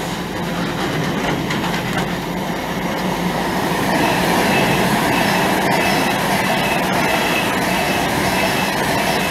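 Container freight train's wagons rolling past on the near line: a steady rumble of wheels on rail that grows louder about four seconds in, when a faint high wheel squeal also comes in.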